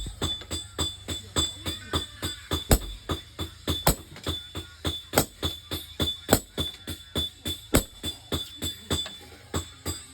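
Hammer blows on hot iron over an anvil, about three to four a second and uneven in strength, with a steady high metallic ring from the anvil.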